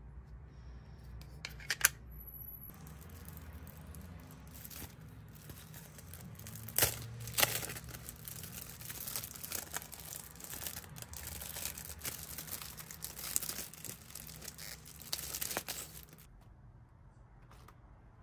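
Clear plastic packaging crinkling and crackling as it is torn open and pulled off a keyboard cover, with sharp crackles loudest about seven seconds in. Two sharp clicks come about two seconds in, before the crinkling starts.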